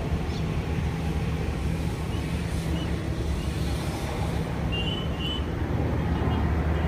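Steady low engine hum, with a few short faint high chirps about five seconds in.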